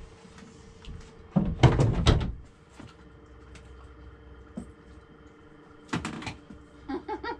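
Clunks and clatter of wood and hand tools being handled: a loud rattling clatter about a second and a half in, lasting about a second, and a short sharp knock about six seconds in.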